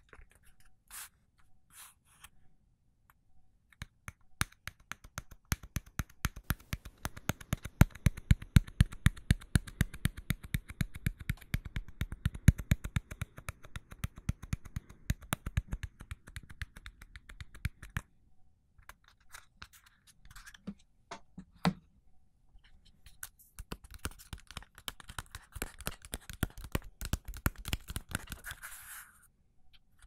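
Rapid scratching and clicking from a straight razor being handled and scraped close to the microphone. A dense run of ticks lasts many seconds, then after a short lull comes a softer, hissing scrape near the end.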